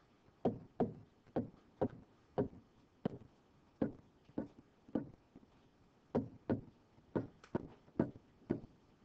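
A stylus knocking against the screen as words are handwritten, one sharp tap with each pen stroke, about two a second, with a short break just after the middle.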